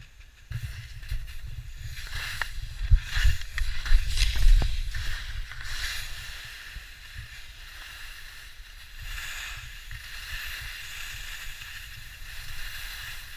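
Wind buffeting a handheld GoPro microphone during a run down a ski slope, gusting hardest a few seconds in. Under it is a steady hiss of snow sliding and scraping beneath him, with a few sharp knocks.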